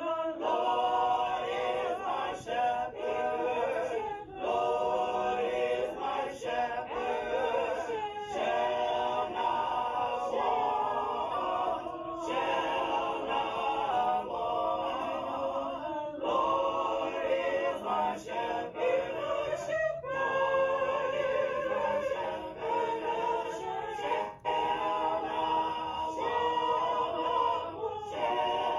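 Church choir of women and men singing together in harmony, long held phrases with short breaks about every four seconds.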